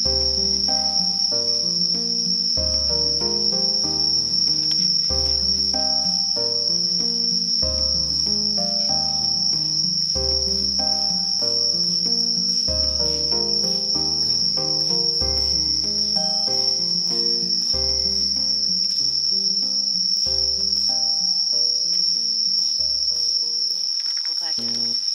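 Steady high-pitched trilling of night insects such as crickets, unbroken throughout. Under it runs soft background music of slow, stepped notes with a low bass note about every two and a half seconds, fading near the end.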